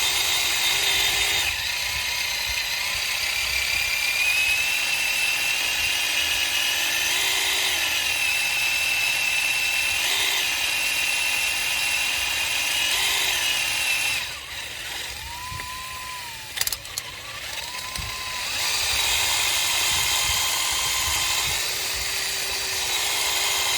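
Electric drill boring a pin hole into a 5.7 Hemi crankshaft through the ATI crank pulley, its motor whine wavering in pitch as the bit cuts. It runs lighter for a few seconds about fourteen seconds in, then bears down again.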